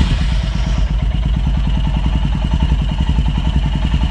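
Motorcycle engine idling steadily just after being started, with a fast, even beat of firing pulses.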